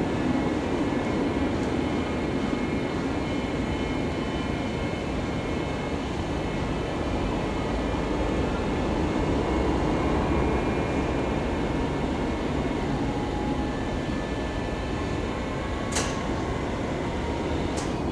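OOYA RE2-1450D radial arm drill press running as its arm is raised up the column: a steady mechanical hum with a gear whine that fades out about two thirds of the way through. Two sharp clicks near the end.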